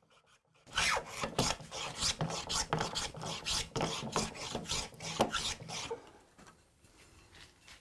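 Bronze-bodied hand plane cutting a chamfer along a walnut edge in quick repeated strokes, about three a second, each a short scraping shave of wood. The strokes begin about a second in and stop about six seconds in.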